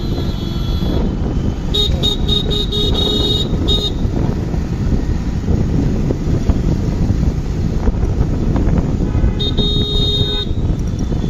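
Wind and road noise of a motorcycle ride through city traffic. A vehicle horn honks for about two seconds, starting about two seconds in, and again briefly near the end.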